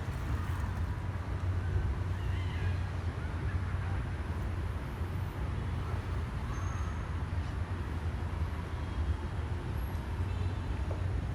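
Steady low rumble of city traffic, with a few faint, brief higher sounds over it.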